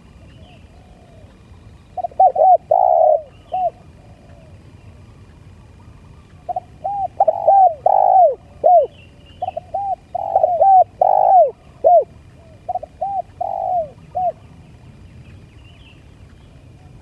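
Spotted dove cooing: several phrases of short arched coo notes, with pauses of a few seconds between them. It is the call style that dove keepers call 'lambung kuk'.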